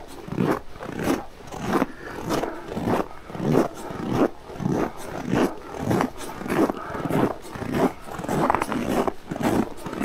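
Footsteps crunching in packed snow at a steady walking pace, one step about every 0.6 seconds.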